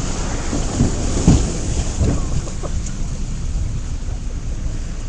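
Wind buffeting the microphone over a steady low rumble, with a few dull thumps in the first two seconds, the loudest just over a second in.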